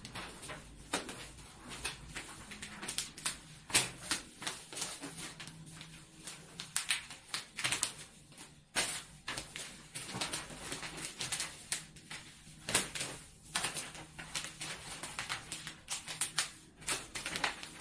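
Sheets of glossy wrapping paper crinkling and rustling as they are gathered and pleated by hand, with irregular sharp crackles.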